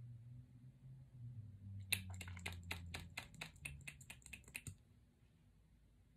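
Rapid run of light clicks, about five a second for nearly three seconds, from a nearly empty lip plumper container being worked to get product out.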